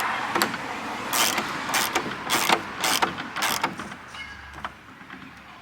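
Repeated rasping strokes of a hand tool working on gate hardware, about one every half second, dying away after about four seconds.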